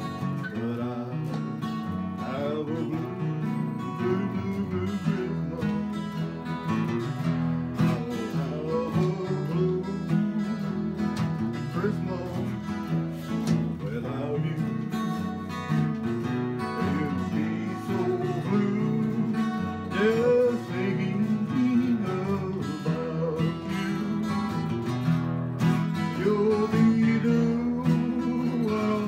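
Acoustic guitar playing a continuous song, chords and picked notes.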